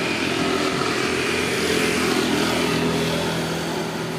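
A motor vehicle's engine running steadily, growing a little louder around the middle and easing off near the end.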